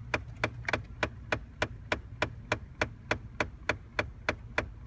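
Rapid, evenly spaced banging clicks, about three a second, from the right side of a 2009 Ford Taurus dashboard, set off by switching the heater off. Under them is a low steady hum from the running car.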